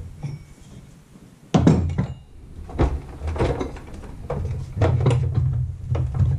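Tools being handled on a plywood workbench: one loud thunk about a second and a half in, then irregular clacks and knocks as metal hole saws are handled in their plastic carrying case.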